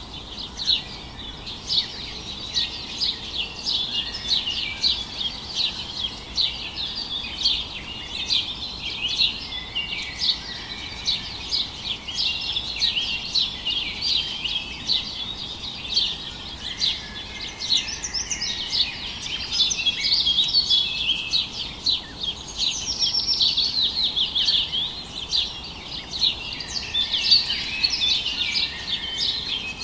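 A chorus of many small birds chirping continuously, a dense run of short, high chirps.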